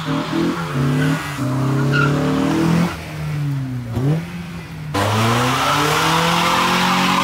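Cars doing burnouts: engines revved hard and held high while the spinning tyres squeal and hiss. About five seconds in the sound cuts to another burnout, its revs climbing and then falling away.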